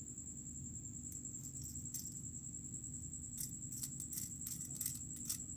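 Light clicking and metallic jingling from a Whopper Plopper topwater lure turned in the fingers: its treble hooks and split rings rattle, and its rotating tail clicks as it is spun. The clicks start about a second in and come thick and fast in the second half, over a steady high-pitched whine.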